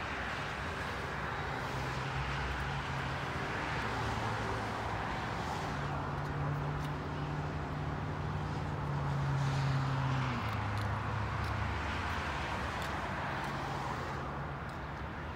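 Steady engine drone over continuous outdoor noise; the engine's pitch steps down about ten seconds in.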